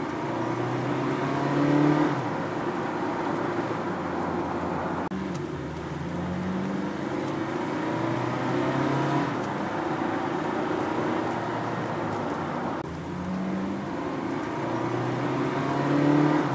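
Honda Freed+ Hybrid cruising on the road, with a steady rush of road and drivetrain noise. Low held notes change pitch and come back about every seven or eight seconds.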